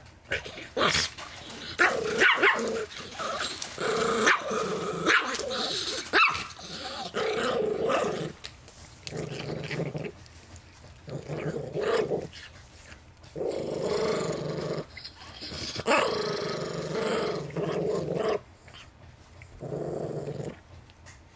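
Chihuahua–miniature pinscher mix growling over a peanut in long stretches broken by short pauses, guarding its food. A few short sharp sounds come in the first six seconds.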